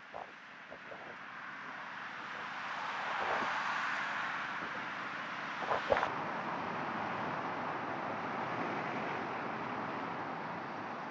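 Road traffic: vehicle noise that swells over the first few seconds and then holds steady, with two sharp knocks just before six seconds in.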